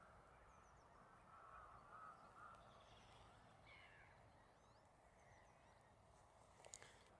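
Faint, distant bird calls over a quiet background hiss: a few wavering calls about two seconds in and scattered short chirps, with a single sharp click near the end.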